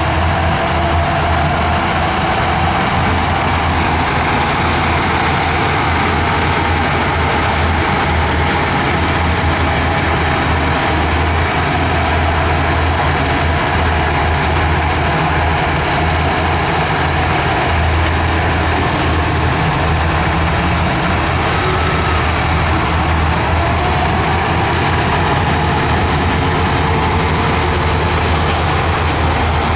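Heavy diesel engine of an earthmoving machine running steadily under load, with a faint whine above the engine note that shifts in pitch briefly past the middle.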